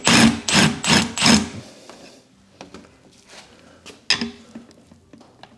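Tire bead being forced down off the rim with a bead breaker and a wooden block: four loud, rhythmic strokes in the first second and a half, then quieter handling with a sharp click about four seconds in.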